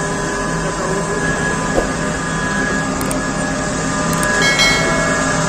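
Electric Komatsu PC4000 mining excavator at work, giving a steady machine hum with several held tones and a small click. About four and a half seconds in, a brief higher tone sounds over the hum.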